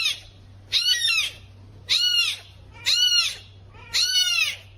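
A kitten meowing repeatedly, about once a second: five short, high-pitched meows, each rising and then falling in pitch.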